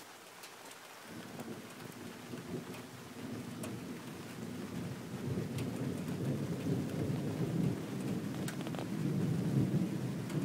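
Rolling thunder: a long low rumble that starts about a second in and builds louder toward the end, with scattered raindrop ticks.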